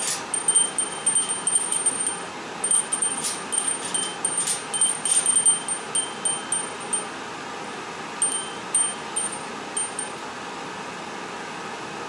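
Small metal bells on a hanging cage toy jingling as a Senegal parrot knocks and shakes them: irregular clusters of high, ringing strikes that die away about ten seconds in.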